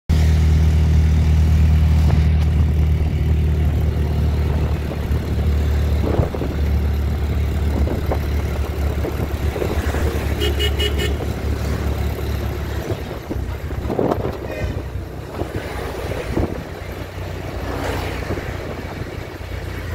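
Steady low engine drone from inside a moving road vehicle, with traffic noise; the drone drops off about thirteen seconds in. Short horn beeps sound about ten seconds in and again a few seconds later.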